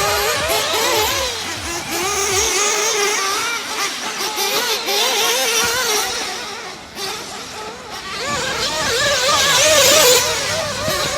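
Radio-controlled off-road cars running around a track, their engines whining and rising and falling in pitch as they speed up and slow down. Several cars overlap, and the sound swells loudest near the end.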